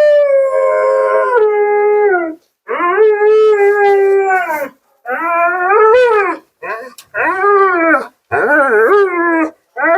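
Siberian husky howling and 'talking': about five drawn-out, wavering calls in a row, each a second or two long, that bend up and down in pitch. This is the vocal protest of a talkative husky being groomed.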